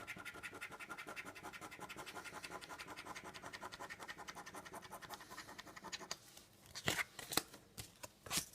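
Rapid back-and-forth scratching of a lottery scratch card, scraping off the silver coating in quick, even strokes, about nine a second. The strokes stop about six seconds in, and three separate, louder scrapes follow.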